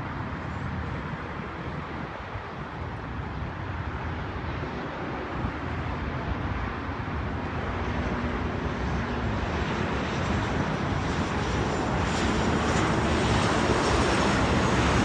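Jet engines of an Oman Air Boeing 737 on final approach with gear down, a steady rumble growing louder as it comes closer. A thin high whine joins in over the last few seconds.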